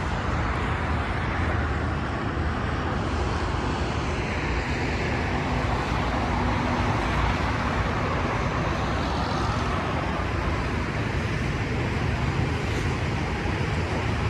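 Steady vehicle and road traffic noise with a low rumble.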